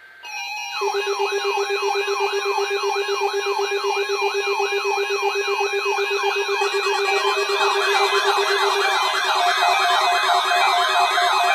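Electronic alert sirens sound in a weather radio alarm test. Several sirens sweep rapidly up and down, about three times a second, over a steady low tone. More sweeping sirens join about seven seconds in, making it denser and louder.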